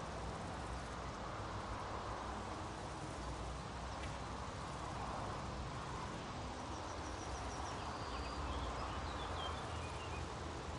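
Steady outdoor meadow ambience, an even hiss of field noise, with a few faint, high bird chirps in quick runs in the second half.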